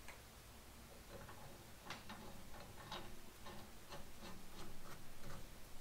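Ratchet wrench clicking: a series of light, sharp clicks, about two or three a second, starting about a second in and getting louder.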